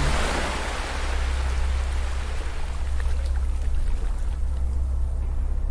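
Ocean waves washing onto a beach: a wave swells in the first second or so and then eases into a steady wash, over a steady low hum.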